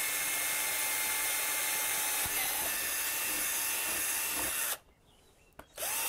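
Cordless drill running steadily, boring a 5.5 mm hole through the plastic base plate of a tank bag. It stops about five seconds in and starts again about a second later.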